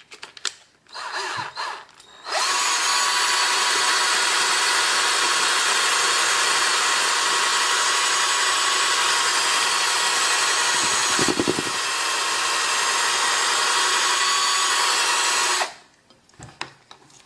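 A small electric motor with a whirring, power-tool-like noise starts about two seconds in, runs steadily for about thirteen seconds and cuts off near the end. A few clicks come before it.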